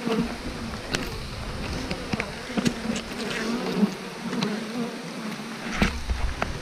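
Honey bees buzzing around an opened hive: a steady hum of many wings, wavering a little in pitch, with scattered sharp clicks and knocks and a low bump near the end.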